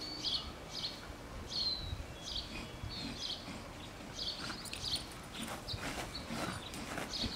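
A small bird chirping over and over, with short high calls roughly one or two a second. A few faint rustles or knocks come through in the second half.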